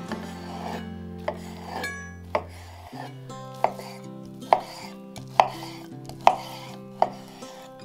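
Knife chopping on a cutting board: about eight sharp strikes, roughly one a second, growing louder after the first few, over soft background music.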